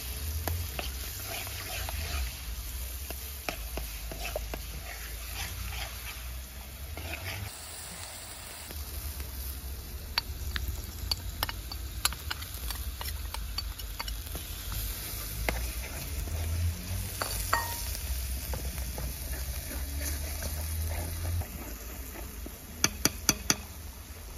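A spoon stirring a sizzling oil and turmeric mixture in a metal pot, with clicks and scrapes of the spoon against the pot over a low steady rumble. About midway, chopped greens are tipped in from a bowl, and near the end the spoon clinks sharply four times.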